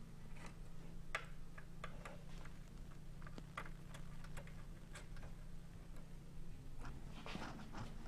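Scattered light clicks and taps of hands fitting parts into a computer case, irregular and a few a second, over a faint steady low hum.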